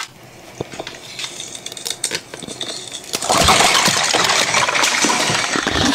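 Ice being handled close to a microphone: scattered light clinks and clicks, then about three seconds in a loud, dense crackling of ice starts.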